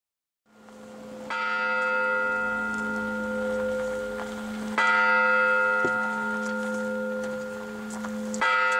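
Orthodox church bell struck slowly, three strikes about three and a half seconds apart, each ringing on until the next; the ringing fades in at the start. It is the bell calling the faithful to the liturgy.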